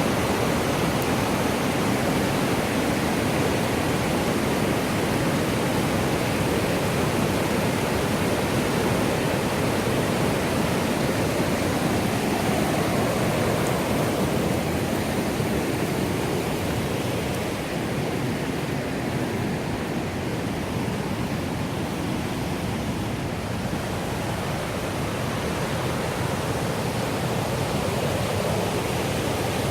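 River water rushing steadily, a little softer for a few seconds in the middle.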